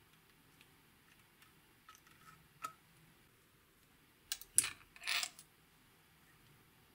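Small clicks and taps of a thin metal spatula working BB cream out of a cosmetic bottle over a glass baking dish, with a sharp click a little before the middle, then a louder cluster of clinks and a short scrape about four to five seconds in.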